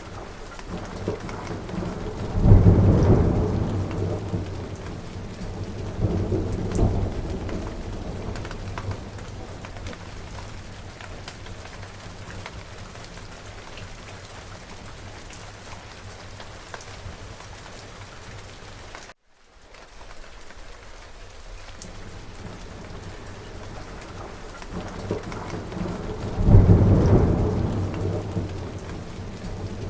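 Steady heavy rain falling, with rolls of thunder: a loud one about two and a half seconds in, a smaller one around six seconds, and another loud one near the end. The sound cuts out for a split second about two thirds of the way through.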